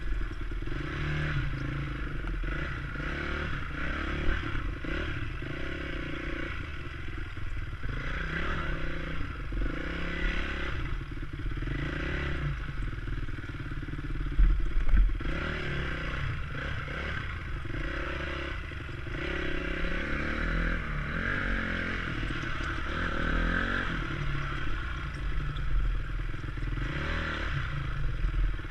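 Honda CRF250X dirt bike's four-stroke single-cylinder engine running at low revs as the bike is ridden slowly over rough ground. The engine note wavers with small throttle changes, and the chassis rattles over the ruts, with one heavier knock about halfway through.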